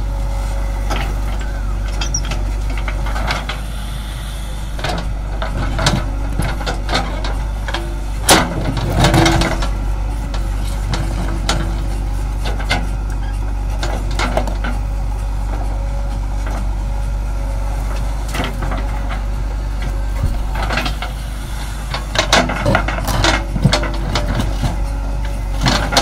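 Kirloskar-engined JCB 3DX backhoe loader's diesel engine running steadily under load as the backhoe digs and loads soil. Irregular clanks and rattles of the bucket against rock and stony earth come through, thickest about a third of the way in and again near the end.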